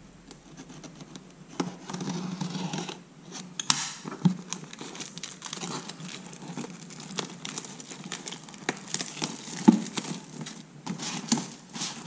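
Plastic shrink wrap being slit with a small knife and peeled off a cardboard box, a dense crinkling and crackling with many sharp clicks.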